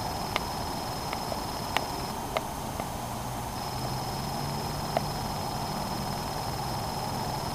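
Steady outdoor background hiss with a faint, thin high whine, broken by five or six short sharp clicks in the first five seconds; a low hum comes up about three seconds in.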